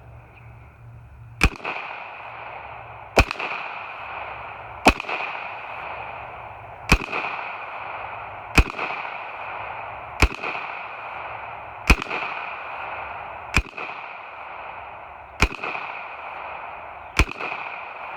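Gunfire: ten single aimed shots at a steady pace, about one every 1.7 seconds, each a sharp crack with a short echo, over a steady hiss. A timed string of fire on a B8 bullseye drill.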